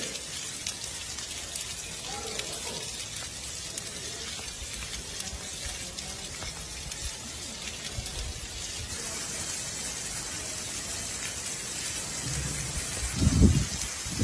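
Steady hiss of light rain and dripping water, with faint distant voices. Low rumbling thumps about thirteen seconds in are the loudest sound.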